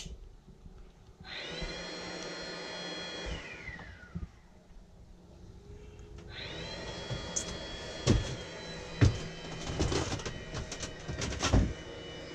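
MV MX50 diesel water heater's combustion air fan whining up to a steady speed as the heater is switched on, winding down to a stop a couple of seconds later, then spinning up again and running steadily. Several sharp knocks sound over it near the end.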